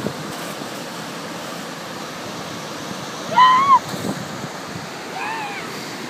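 Ocean surf breaking on a beach, a steady wash of noise. About three and a half seconds in a loud, short, high-pitched cry rises and falls, and a fainter one follows about a second and a half later.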